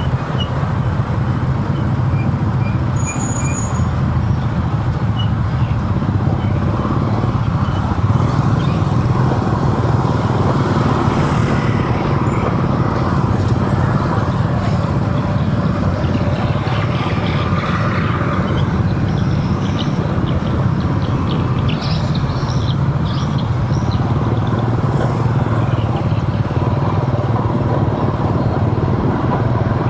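Steady road noise of a vehicle driving through city traffic: a continuous low engine and tyre rumble.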